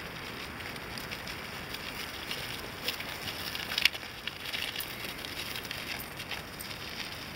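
Footsteps and the small rubber wheels of a dog wheelchair crunching over a gravelly dirt path, with a steady hiss and many small scattered clicks and crackles; one sharper click about four seconds in.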